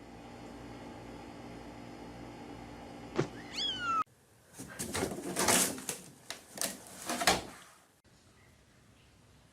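A domestic cat meows once with a falling pitch over a steady background hum. After that comes a run of loud, harsh, noisy bursts lasting about three seconds.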